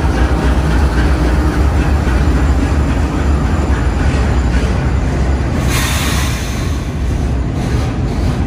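Two GE AC44CW diesel-electric locomotives of a freight train passing close by, their engines running with a deep, steady rumble over wheel and rail noise. A short hiss comes about six seconds in.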